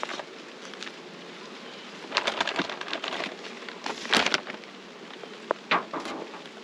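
A bag rustling and crinkling in two bursts as it is handled, the second about four seconds in, with a few sharp clicks after. A steady hum of honey bees flying around the open hive runs underneath.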